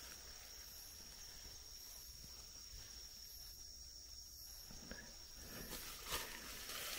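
Faint, steady chorus of night insects: one constant high-pitched trill. A few soft rustles and footsteps in the leaf litter come in over the last couple of seconds.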